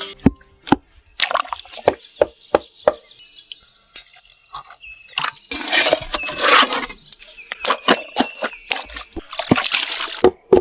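Liquid sloshing and splashing in two longer bursts, with many sharp clicks and knocks scattered throughout.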